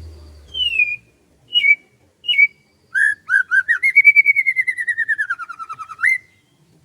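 A songbird singing close by: three short falling whistled notes, then a fast trill of about eight notes a second that rises and then slowly falls in pitch over some three seconds, ending on a quick upward note.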